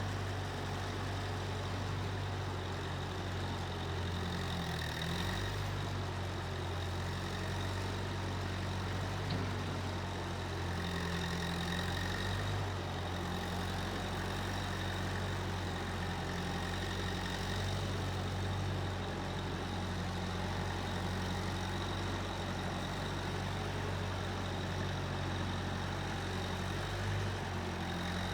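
Case 1530 Uni-Loader skid steer engine running steadily at an even speed, a low engine drone with a faint high whine over it.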